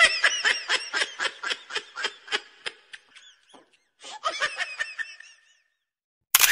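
Laughter in quick ha-ha pulses, about six a second, for nearly three seconds, then a second, shorter bout about four seconds in.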